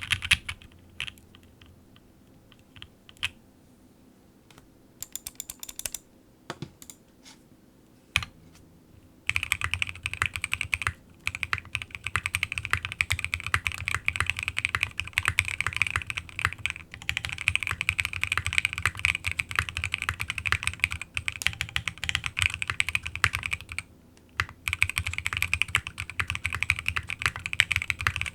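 Fast typing on a gasket-mounted GOK 7V mechanical keyboard with lubed, filmed Alpaca V2 linear switches, a polycarbonate plate and KAT-profile keycaps: a dense, steady stream of keystroke clicks. It starts about nine seconds in after a near-quiet stretch with only a few isolated clicks, and pauses briefly near the end.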